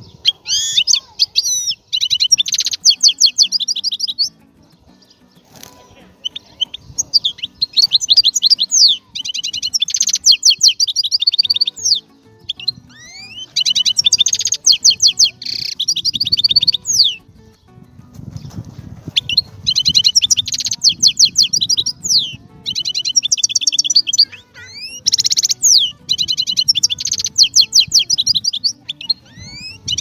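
Songbird singing in phrases of fast trills, with rapidly repeated high notes that run for a few seconds at a time and are separated by short pauses.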